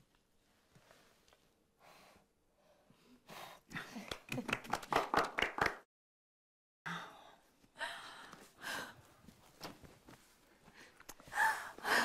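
Breathy human vocal sounds without words, gasps and sighs, loudest a few seconds in. A second of silence falls midway, then more gasping and breathing builds toward the end.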